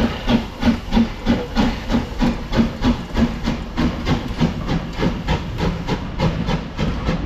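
Adams O2 class 0-4-4 tank steam locomotive working past with its train, its exhaust beating evenly at about three chuffs a second with a hiss of steam. In the second half the beats grow weaker under the rumble and clatter of the carriages rolling by.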